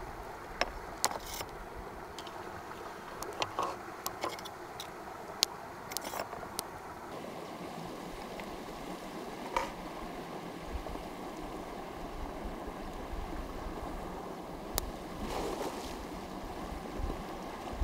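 A stream running steadily, with scattered sharp clicks and knocks over it, most of them in the first seven seconds or so.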